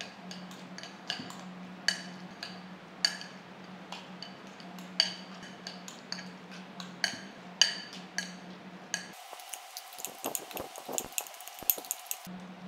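Metal spoons clinking and scraping against a ceramic bowl while stirring a minced mixture: irregular sharp clinks about once a second over a steady low background hum.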